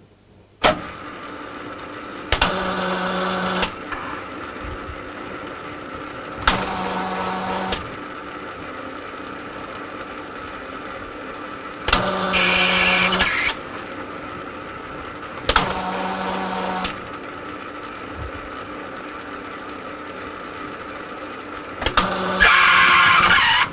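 Metal lathe clicking on about a second in and running steadily while screwcutting a multi-start thread at a 10-thou depth of cut. Five louder, harsher stretches of about a second and a half each come and go as the tool takes its thread-cutting passes.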